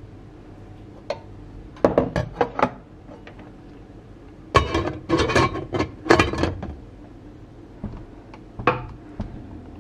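Dishes and utensils knocking and clinking as they are handled: a quick run of knocks about two seconds in, a longer spell of clatter in the middle, and a few single knocks near the end.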